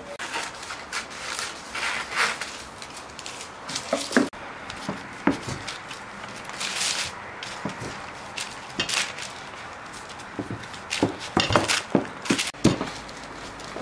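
Kitchen handling sounds while a cake is being assembled: scattered light knocks and clicks of utensils and dishes, with short bursts of rustling or scraping, and a quick run of knocks near the end.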